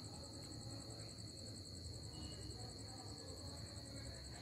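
Crickets trilling: a steady high-pitched trill with a fast, even pulsing above it, faint, over a low rumble.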